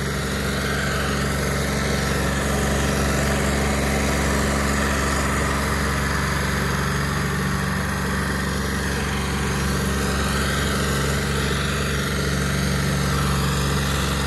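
Tractor diesel engine running steadily at constant speed, with an even, unchanging drone.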